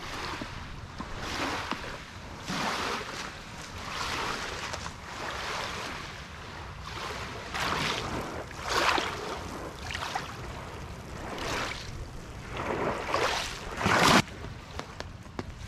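Small waves lapping and washing over a pebble shoreline, a rush every second or so. The loudest breaks about fourteen seconds in, then the sound cuts off suddenly.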